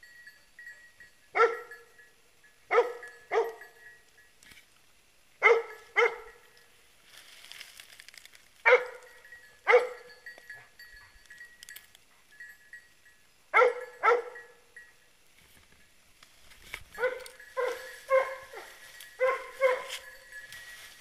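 Hunting dog barking in short pairs and threes every few seconds, then a quicker run of barks near the end.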